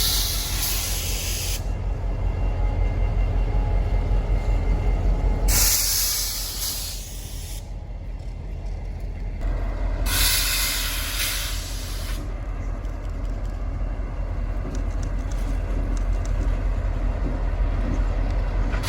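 Freight train rumbling steadily, with three bursts of hissing, each about two seconds long: one at the start, one about six seconds in and one about ten seconds in.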